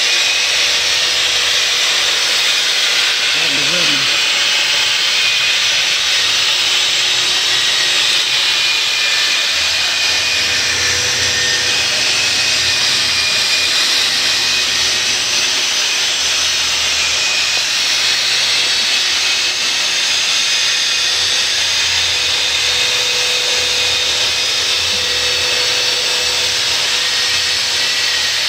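Long-handled power drywall sander with a vacuum dust-extraction hose running steadily against the ceiling, a loud even hiss with a faint motor whine, grinding down painted popcorn texture that would not scrape off.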